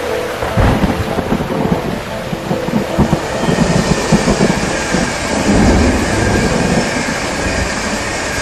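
Steady rain with repeated low rumbles of thunder, strongest a little past the middle.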